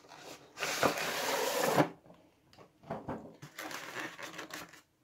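Plastic model-train tray sliding out of its cardboard box sleeve: a scrape of about a second, followed by quieter rustling and light clicks as the tray is handled.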